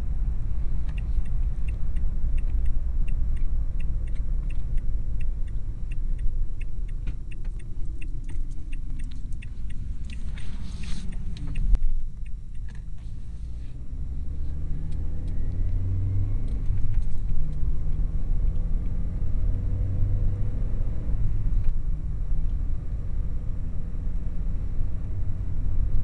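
Car engine and road rumble heard inside the cabin while driving a village road. A quick, regular light ticking runs through the first ten seconds or so. The car eases off about halfway through, then accelerates, the engine note rising.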